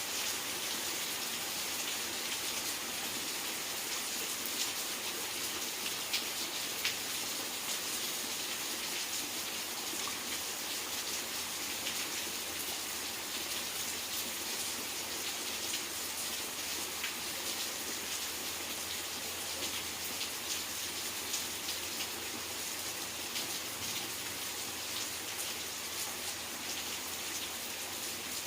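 Steady rain falling, a continuous hiss with many separate drops ticking throughout.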